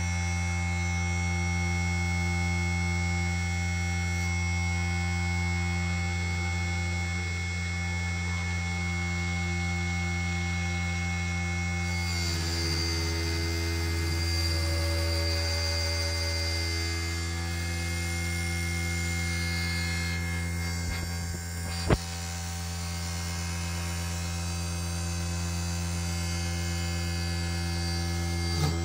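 Small hobby CNC machine converted to a lathe running during a test cut: a steady motor hum with several whining tones that shift in pitch about twelve seconds in, and one sharp click about twenty-two seconds in.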